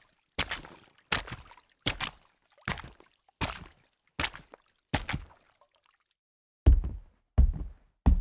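Heavy footsteps at a steady walking pace, about one step every three-quarters of a second. After a pause of a second or so near the middle, a louder, deeper, heavier-sounding set of steps begins.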